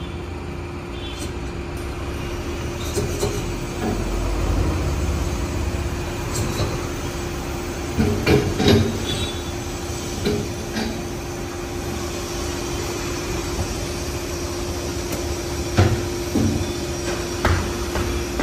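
Wheel balancing machine with a car wheel on its shaft being turned and stopped by hand, over a steady hum. Metal clanks about eight seconds in and again near the end as the clamp comes off and the wheel is lifted from the shaft.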